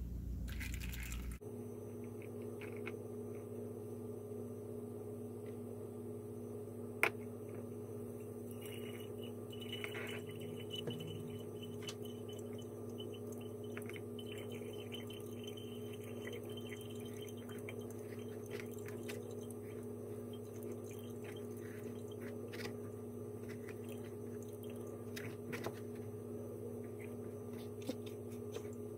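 A wooden spoon tapping and scraping a metal mesh strainer as almond milk drips through a funnel into a bottle: scattered small clicks and taps, one sharp tap about seven seconds in. A steady low hum runs underneath.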